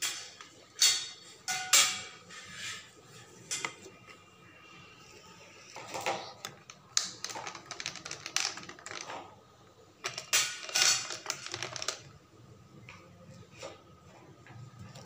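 A spoon stirring juice in a drinking glass, clinking and tapping against the glass in irregular runs of clicks with short pauses between.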